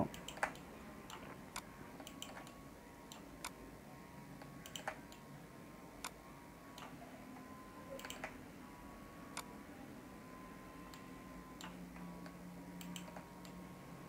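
Faint computer mouse clicks, about a dozen at uneven intervals, over a low steady hum.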